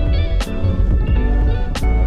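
Background music: guitar-led track with a steady beat and deep bass.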